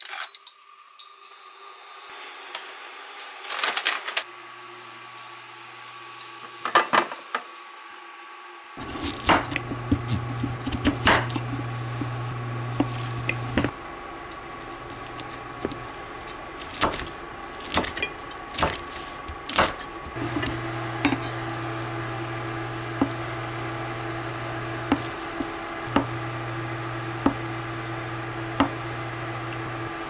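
Chef's knife chopping on an end-grain wooden cutting board: irregular sharp knocks of the blade on the wood. Under them runs a steady low electric hum that starts about nine seconds in and cuts out briefly twice.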